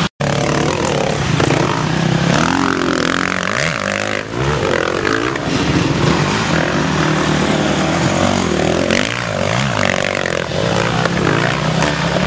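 Off-road enduro motorcycle engines revving hard, their pitch rising and falling again and again, with more than one bike running at once.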